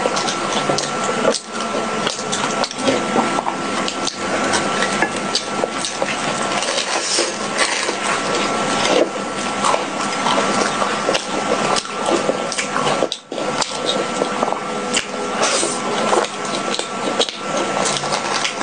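Close-miked chewing of sticky purple-rice bread coated in thick yellow sauce: continuous wet, sticky mouth sounds with many small smacks and clicks. A thin steady high tone hums underneath.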